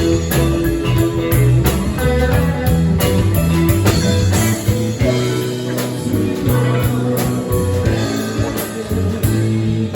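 Live rock band playing: electric guitar over bass and drums.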